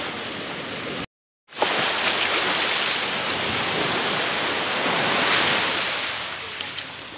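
Strong surf breaking on a beach at high tide, a steady rushing noise with wind on the microphone. The sound drops out completely for about half a second about a second in, then comes back louder and eases off near the end.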